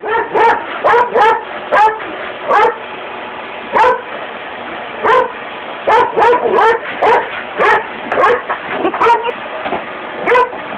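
Black poodle barking over and over in quick, irregular bursts at a running shop vacuum. The vacuum's steady motor noise fills the gaps between barks, and the barking pauses for about a second a little before halfway.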